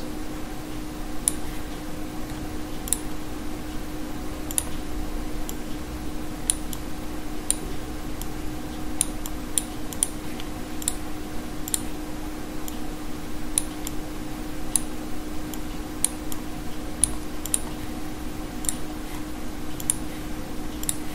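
Computer mouse buttons clicking at irregular intervals, about one click a second, while reference stars are picked on screen, over a steady low electrical or fan hum.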